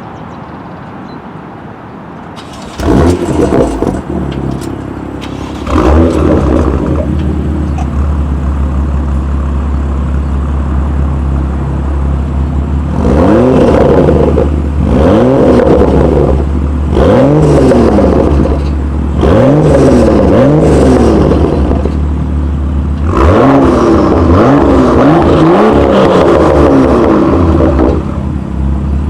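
BMW M2 turbocharged straight-six with an aftermarket sport exhaust starting about three seconds in, with another loud surge about three seconds later, then idling. Repeated free-revving blips follow, and there is a longer run of revs near the end.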